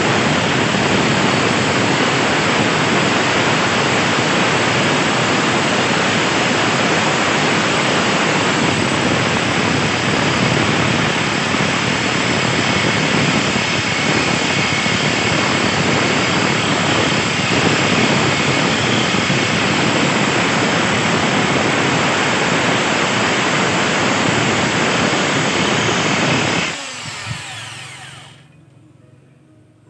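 Makita electric drill running steadily, driving a diamond core bit through a wet glass pane. About 27 seconds in it is switched off and winds down to quiet.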